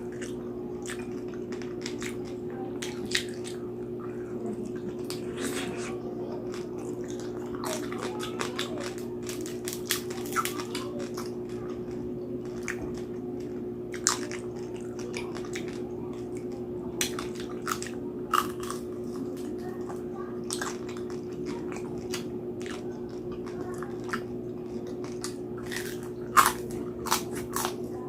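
Close-up chewing and crunching of crispy roast pig's head (lechon), with sharp crackling bites scattered throughout; the loudest crunches come near the end. A steady low hum runs underneath.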